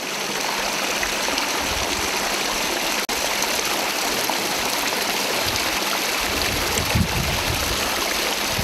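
Water running down a rock fountain and splashing into its stone basin, a steady even rush with a momentary break about three seconds in.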